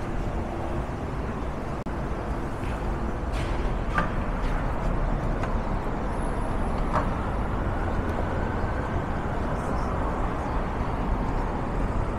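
Steady rumble of downtown street traffic heard while walking, with two short sharp clicks about four and seven seconds in.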